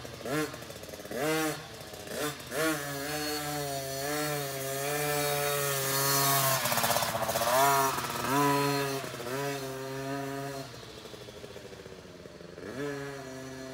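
KTM 50 SX two-stroke single-cylinder dirt bike engine revving, first in short blips of throttle, then held at higher revs as the bike passes close by, loudest about seven to eight seconds in. It then fades as the bike rides away and picks up again near the end.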